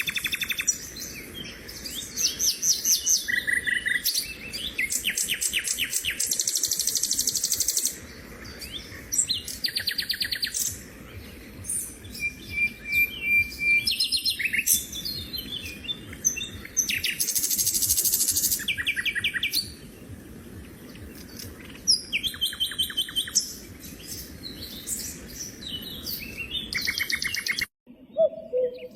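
Songbirds singing: one series after another of rapid high chirps and trills, over a faint steady background noise.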